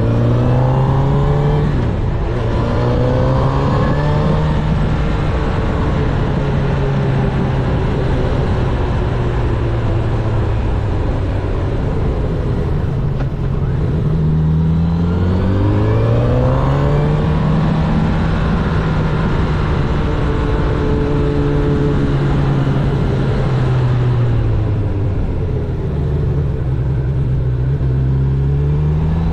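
Honda CB1000R's inline-four engine under way with wind rush. Revs climb and step down through gear changes near the start and again about halfway, easing off in between.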